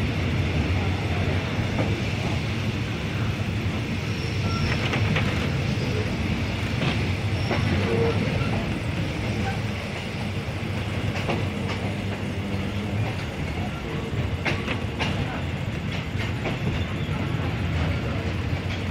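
Diesel passenger train on the Thai Nam Tok line pulling out of the station, heard from inside an old third-class carriage: a steady low rumble with irregular clacks of the wheels over the rail joints, more of them in the second half.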